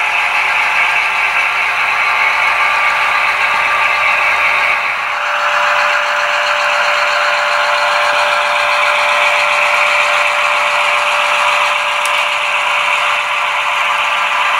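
Sound-decoder diesel engine sound from a consist of Intermountain GP10 model locomotives running together, mixed with the rattle of the models rolling along the track. A steady tone joins about five seconds in.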